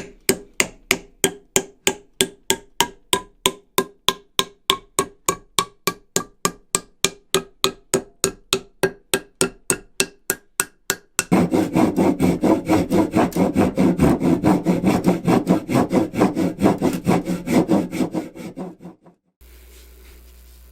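Hammer blows struck about four times a second, each with a short ringing tone that rises slightly in pitch. About eleven seconds in they give way to a faster, rougher rasping run of strokes that stops near nineteen seconds, leaving only a low steady hum.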